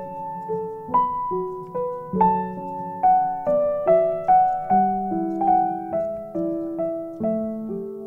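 Background piano music: a slow melody of single struck notes, about two a second, each fading away, over softer lower chord notes.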